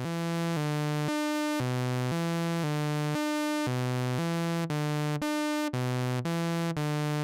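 Moog Mother-32 analog synth voice playing a stepped sequence from a Make Noise René sequencer, about two notes a second, its pitches limited by the René's quantizer to a chosen scale. In the first part the notes run into one another; from about two-thirds in, short gaps separate them as the gate takes over.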